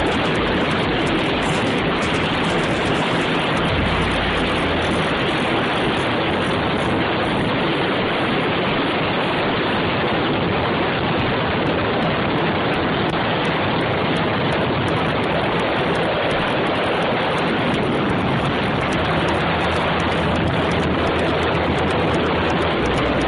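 Steady rush of wind and road noise inside a car moving at speed, heard by the side window.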